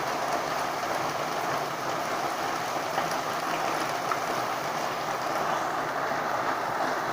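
Heavy rain falling, a steady hiss with a couple of faint ticks.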